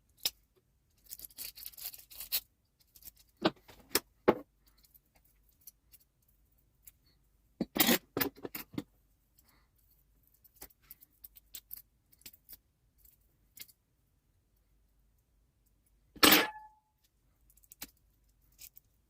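Broken glass from a crushed small light bulb clinking and scraping as it is cleared out of the bulb's base: scattered clicks and short scrapes, with one louder clink that rings briefly about sixteen seconds in.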